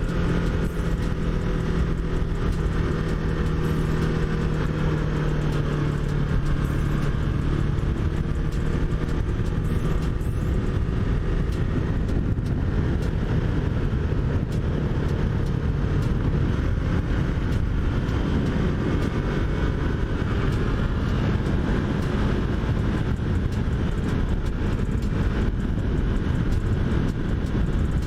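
2021 Yamaha MT-03's parallel-twin engine running at a steady cruising pace under heavy wind and road rumble. The engine's steady note is clear for the first third or so, then sinks into the wind rush.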